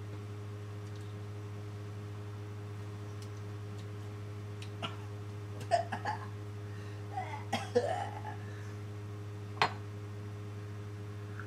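A man coughing and clearing his throat in a few short bursts during the second half, over a steady low electrical hum.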